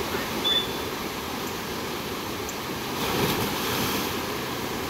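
Water rushing steadily down a steep rock water slide into a pool, with a splash about three seconds in as a slider plunges into the water. A short high squeak sounds about half a second in.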